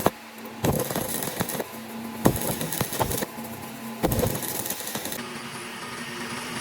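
Metal-on-metal knocks as a gear piece is fitted to an excavator wheel hub: about six sharp strikes spread through the first four seconds, with stretches of hiss between them, then a steady machine hum near the end.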